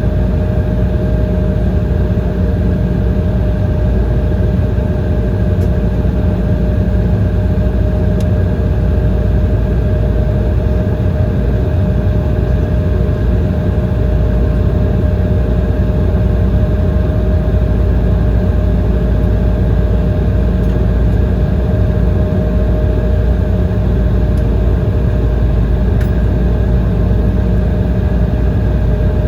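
Steady cabin noise inside an Embraer ERJ-170 jet airliner: a low rumble from its GE CF34 turbofan engines with a steady whine above it, unchanging throughout.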